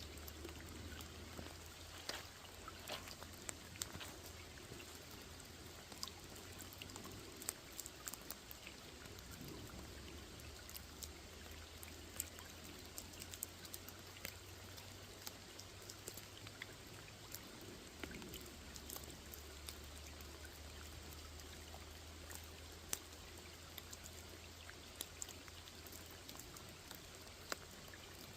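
Rain falling on a small lake: a steady hiss with many scattered, irregular drop plinks, over a low steady hum.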